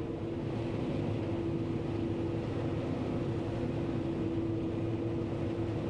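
John Deere 9500 combine running steadily under load while harvesting corn, an even engine and machinery drone with a constant whine heard from inside the cab.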